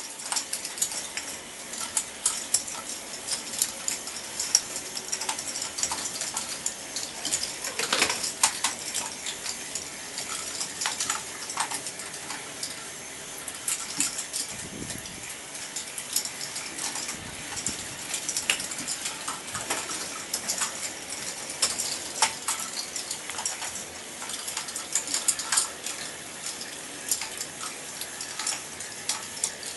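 K'nex ball machine running: plastic balls clicking and clattering along the tracks and through the lifts, a dense run of irregular clicks over a steady mechanical background.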